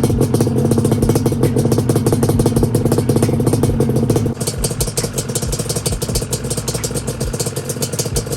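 Yamaha Banshee 350's parallel-twin two-stroke engine running to warm up after a carburettor rejet, with a fast, crackling firing rhythm. About four seconds in the sound drops a little quieter and changes character.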